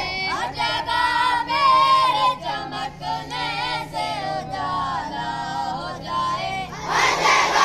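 A boy's solo voice singing a line of the school dua (prayer) as a melodic chant. Just before the end, the assembled schoolchildren come in together in unison.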